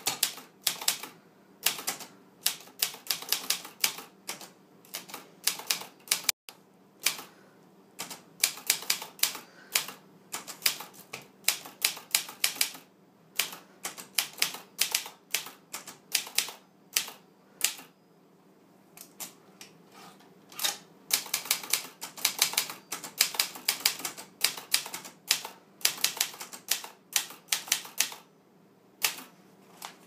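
Wizard portable manual typewriter being typed on: runs of quick, sharp key strikes in bursts, with a few short pauses between them.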